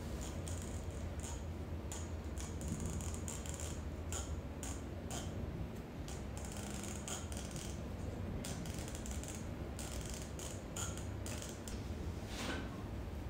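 PTFE thread-seal tape being pulled off its roll and wound onto a brass threaded fitting: a run of short, irregular crinkling rustles and clicks. A steady low hum runs underneath.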